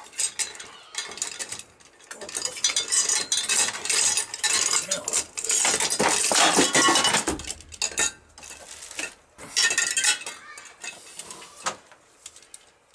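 Metal valve-train parts and hand tools clinking and rattling as valve springs and their retainers are fitted onto a Yamaha XS650 cylinder head, in a long spell of handling followed by a shorter burst.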